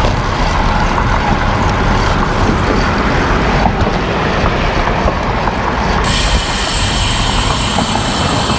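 Wind buffeting the microphone and road noise from a moving bicycle, a steady low rumble. A steady high-pitched whine joins abruptly about six seconds in.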